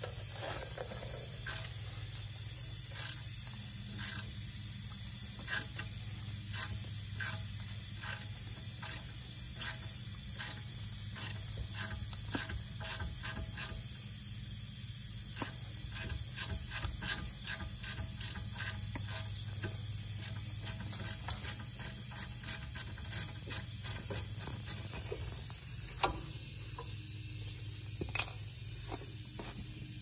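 Hand ratchet wrench clicking in short runs as a bolt under the car is turned, with a couple of louder metal knocks near the end.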